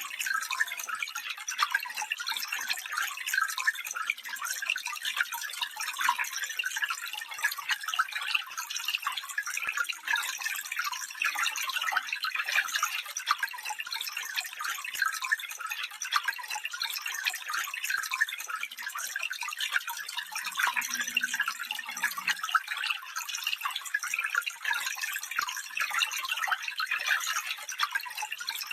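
Small stream babbling over stones: a steady, bright trickling and splashing with many fine irregular plops and no deep rumble.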